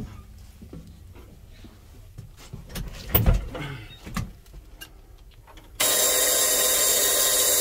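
A few clicks and knocks in the truck cab, then about six seconds in the key is turned and the starter of the 1987 Ford 8000 water truck's Caterpillar diesel cranks with a loud, steady whine.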